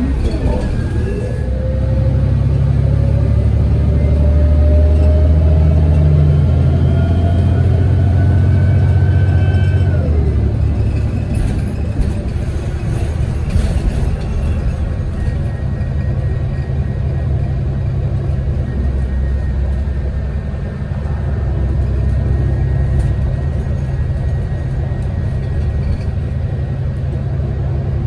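City transit bus's engine and drivetrain running under way, with a low rumble throughout. A whine rises steadily in pitch over the first ten seconds as the bus accelerates, then drops suddenly. The rest is steady cruising.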